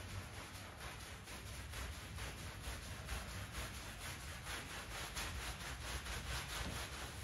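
A hand scrub brush scrubbing the wet, shampoo-foamed pile of a small Bokhara rug in quick, steady strokes.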